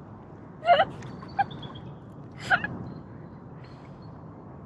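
A person's short wordless vocal sounds: a brief exclamation about a second in and a sharp breath or gasp midway. Under them a steady outdoor background hiss with a few faint high chirps.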